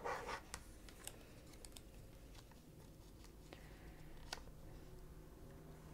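Fingers handling small paper pieces on a cutting mat: a short rustle right at the start, then faint, scattered taps and clicks as the pieces are positioned and pressed onto a paper tag, with one sharper click a little past four seconds in.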